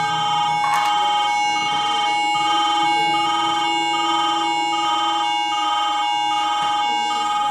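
Acoustic feedback between condenser microphones and active loudspeakers in a no-input loop. A steady, piercing tone is held throughout, with a cluster of higher tones pulsing on and off about twice a second over a low drone.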